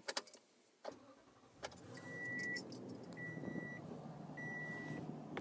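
Ignition keys jangling as the key is turned, then the Toyota Tundra's 5.7-litre V8 starts about a second and a half in and settles into a steady idle. Over it a dashboard warning chime beeps three times at an even pace.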